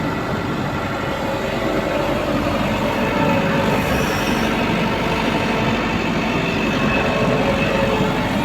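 Excavator running: a steady diesel engine and machinery din with faint whining tones, getting a little louder about three seconds in.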